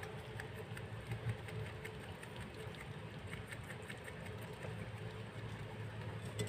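Baby rabbits nibbling grass: a scatter of faint, crisp ticks from chewing and the grass being moved. These sit over a steady low hum, with a couple of slightly louder ticks about a second in.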